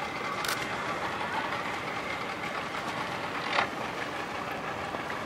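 Steady rushing noise of wind and water around a boat on open water, with a sharp knock about half a second in and a louder knock about three and a half seconds in.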